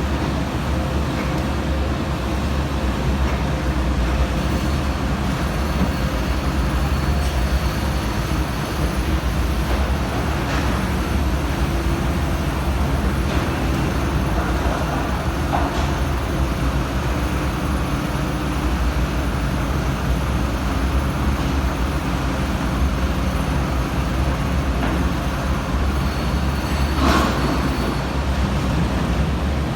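Komatsu PC350-7 excavator's six-cylinder turbo diesel running steadily, with one sharp knock near the end.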